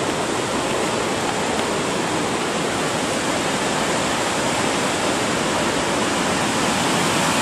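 Steady rushing of the Gooseberry River's rapids and falls, running high after rain.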